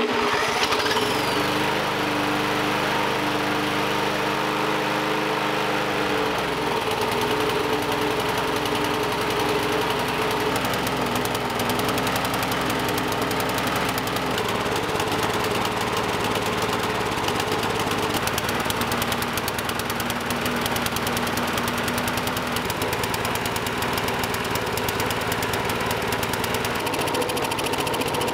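A cordless drill spins a small lawn mower engine over to start it, with a steady whine for about the first six seconds that then drops away. The engine keeps running on its own with a rapid, even firing, on gasoline with naphthalene mothballs dissolved in it. That fuel leaves white deposits in the carburetor and makes the engine run badly.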